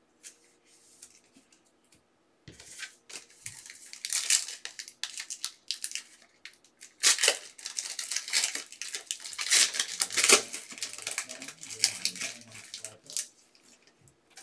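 Trading-card packaging being torn open and crinkled: a run of rips and crackles starting about two and a half seconds in, loudest around four seconds and again for several seconds in the middle, dying away near the end.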